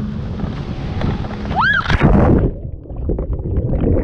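Wind and spray rushing past a towed banana boat, a brief shout, then a loud splash about two seconds in as the riders are thrown into the sea. The sound then turns muffled and bubbling as the action camera goes underwater.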